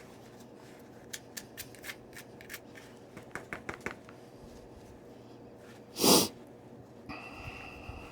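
Pressure flaking a stone point: a run of small sharp clicks as tiny flakes snap off the edge, followed a little after six seconds by one short, louder breathy puff.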